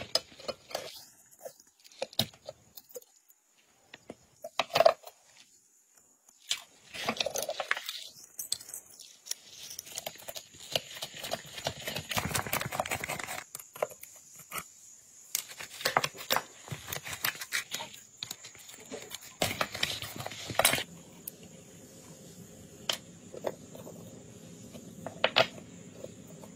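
A steel pick scraping and prying at rust on old gun parts: irregular scrapes, taps and small metal-on-metal clicks, with short pauses between strokes.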